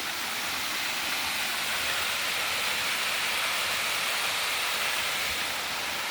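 Steady rush of water from a nearby waterfall, a constant hiss that grows a little louder about a second in and holds.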